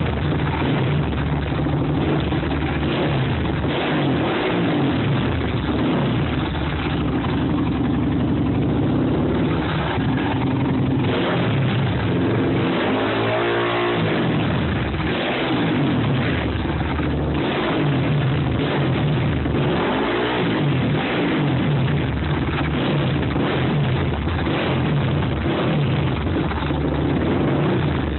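Predator 500 single-cylinder small engine running loud, revved up and back down several times so its pitch rises and falls between steadier stretches.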